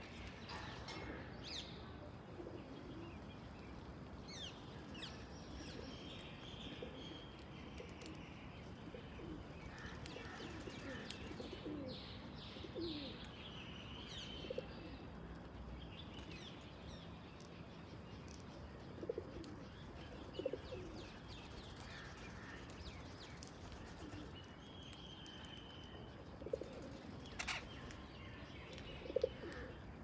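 Wild birds chirping and twittering. Several short low calls stand out as the loudest sounds, in the second half.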